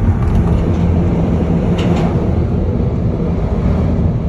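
Road noise inside a car's cabin while driving across a steel truss bridge: a steady low rumble from the tyres and the bridge deck, with a brief hiss just under two seconds in.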